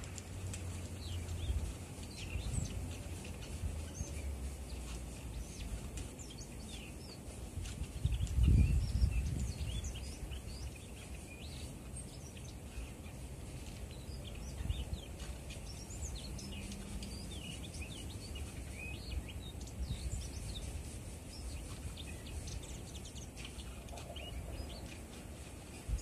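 Male Daurian redstart singing a quiet, rambling song of many short, high twittering notes, softer and more chattering than its usual 'hi... hi... kakat' call. Wind rumbles on the microphone throughout, with a strong gust about eight seconds in.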